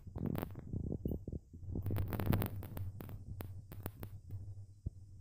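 Scattered knocks and clicks of a handheld laser welding gun and metal pieces being handled on a steel plate, over a steady low machine hum.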